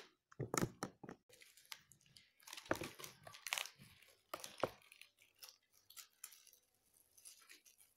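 The packaging of a small box of oil pastels being torn open by hand: irregular crinkling and tearing with a few sharper rips, dying down to quieter handling after about five seconds.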